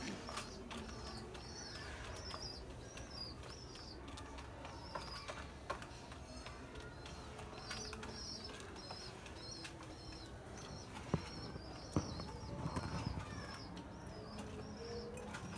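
Pigeons feeding from clay bowls: a few sharp taps of beaks pecking at grain, the two loudest about a second apart late on, followed by a brief rustle. Behind them, small birds chirp in short high notes that repeat over and over.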